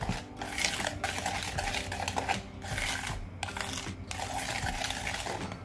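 Wire whisk beating creamed butter, sugar and egg by hand in a plastic bowl: quick repeated scraping swishes of the wires against the bowl, with the mixture smoothing as the egg emulsifies into it.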